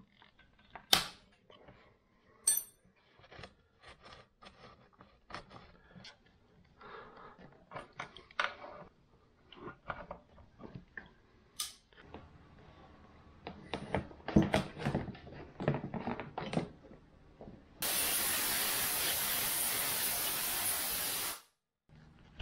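Hand tools clicking and knocking against bolts and frame parts of a dirt bike being taken apart. Near the end comes a loud, steady spraying hiss lasting about three and a half seconds that stops abruptly.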